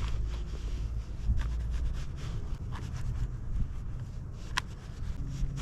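Knife cutting raw trout fillets into chunks, with scraping and a few sharp taps of the blade.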